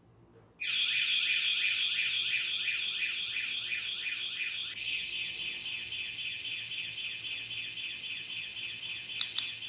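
E-scooter anti-theft alarm (MOBOT ES-SF22R, a 113 dB siren) going off: a loud electronic siren starts about half a second in, sweeping up over and over, two to three times a second. About four seconds later it switches to a steady, rapidly trilling tone. Two sharp clicks come near the end.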